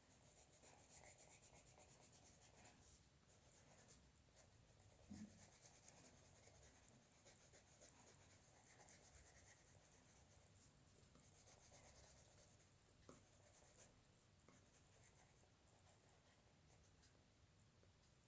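Faint drawing strokes: a pen tip scratching across a drawing surface in short runs with pauses, with a soft tap about five seconds in.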